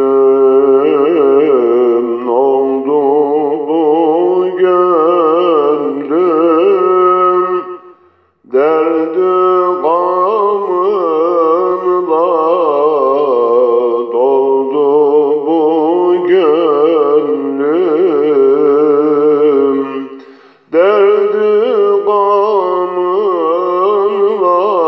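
An elderly man sings an ilahi, a Turkish religious hymn, solo and unaccompanied. The melody runs in long phrases with a wavering, ornamented line, broken twice by short pauses for breath, about eight and twenty seconds in.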